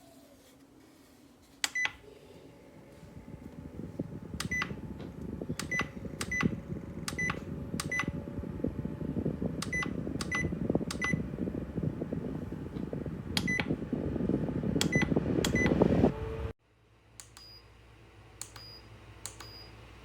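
A string of short electronic beeps, like button presses on an appliance's control panel, over a rushing, fluttering noise that grows louder and then cuts off suddenly about three-quarters of the way in. After that a faint hum remains, with a few higher beeps.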